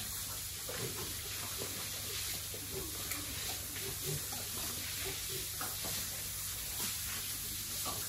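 Irregular wet splashing and slurping of a large white pig feeding at a trough in a water-covered pen.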